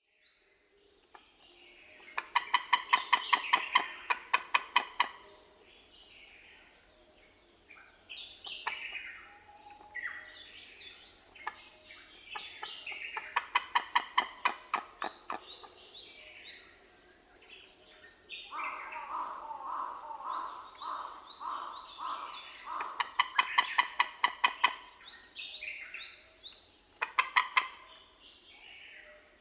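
White-tailed eagles calling: fast series of high, repeated notes from more than one bird, overlapping. There are four main bouts: about two seconds in, around thirteen seconds, from about eighteen to twenty-five seconds, and briefly near the end.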